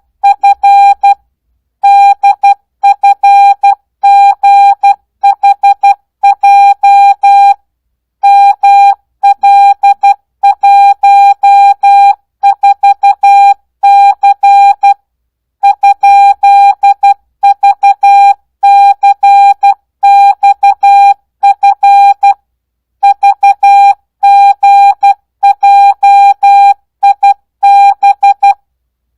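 Morse code sent as a single beep tone at 12 words per minute without Farnsworth spacing: short and long beeps run together into characters, with slightly longer gaps between words.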